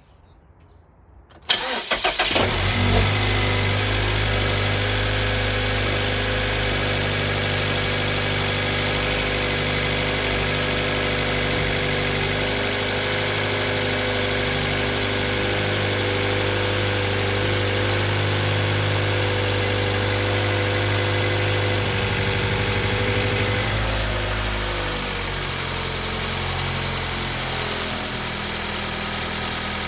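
2014 Mazda 3's 2.0-litre four-cylinder engine starting cold, catching about a second and a half in and idling steadily. The engine has a diagnosed number 2 cylinder misfire. About 24 seconds in, a click is heard and the engine note steps down to a lower, quieter idle.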